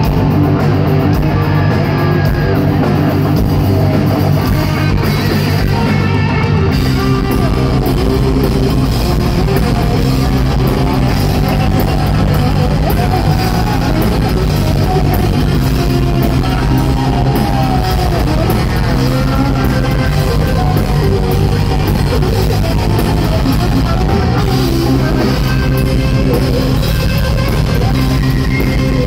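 Live heavy rock band playing an instrumental: distorted electric guitar lead with bending notes over drum kit and bass. The low end gets heavier about seven seconds in.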